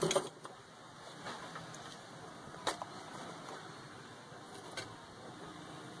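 A few faint, sharp clicks and taps, the strongest about two and a half seconds in, over a steady low hiss: plastic parts of an opened mobile phone being handled and fitted together.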